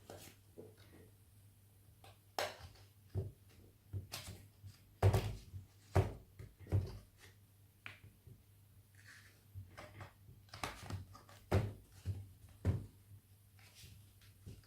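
Irregular plastic clicks and knocks as the screen bezel of an HP Stream laptop is pried up with a plastic card, the bezel's clips snapping loose one after another.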